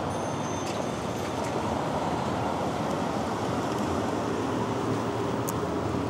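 Steady city street traffic noise heard from a moving bicycle, with passing cars and a constant rush of air.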